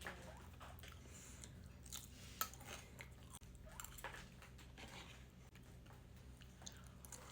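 A person chewing and biting food close to the microphone: soft, irregular crunches and clicks, the sharpest about two and a half seconds in, over a faint steady low hum.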